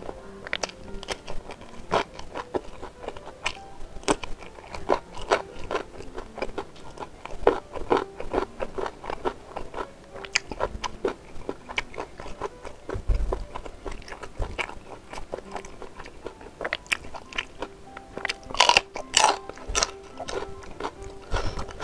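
Close-miked eating: crunchy bites into raw green chili and chewing of beef rib meat, an irregular run of sharp crunches and mouth sounds, loudest in a cluster near the end.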